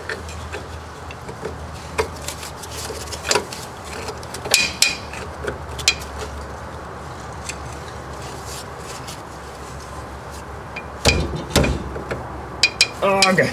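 Scattered metallic clicks and knocks as a long steel bolt is worked by hand through a rear suspension lateral link bushing, with a couple of louder knocks about eleven seconds in.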